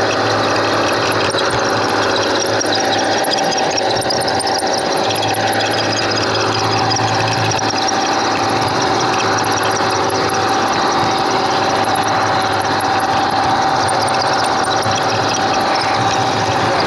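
Garden railway train running along the track, heard from on board: a steady mechanical whine with a constant high tone over the rumble of wheels on the rails.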